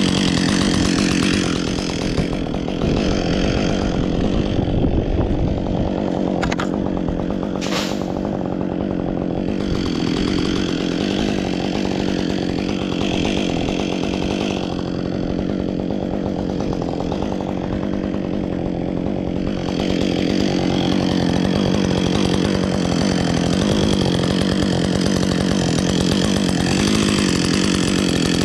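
Gasoline chainsaw running steadily under load, cutting through oak wood, its engine note wavering slightly. Two short sharp clicks come about six and eight seconds in.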